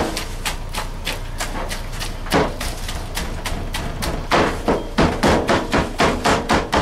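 Cooked barbecue pork being chopped by hand with blades on a cutting board. Scattered chops at first, then a steady run of about three chops a second from about four seconds in.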